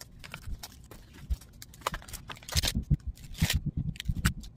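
Adhesive vinyl being weeded: scrap vinyl peeled off its backing with a weeding hook. It makes scratchy crackles and small clicks, with two longer peeling rips in the second half and light knocks of hands and tool on the cutting mat.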